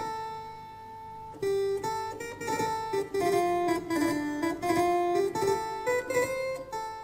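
Background music: a plucked-string piece that opens on a held chord, then plays a stepping melody of single notes from about a second and a half in.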